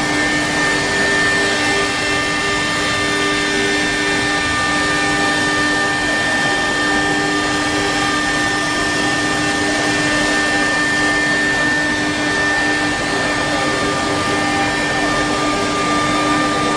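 High-speed router spindle on a CNC lathe running steadily, a constant whine of several held tones over a dense motor hiss.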